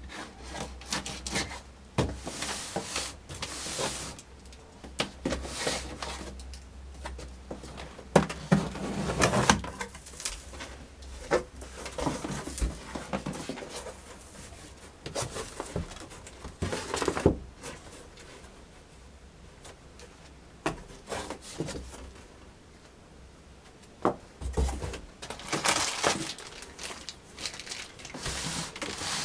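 A monitor's cardboard box and packing being handled and opened: irregular rubbing and rustling with scattered knocks and clicks, over a low steady hum.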